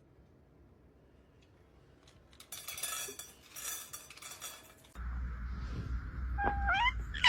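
Hard objects clinking and rattling for about two seconds. After that a steady hum sets in, with a short rising, squeaky call near the end.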